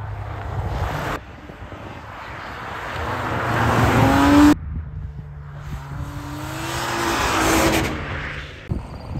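Car engines revving hard as cars are driven through deep snow. The engine note climbs to a loud peak and cuts off suddenly about four and a half seconds in, then climbs again and falls away near the end.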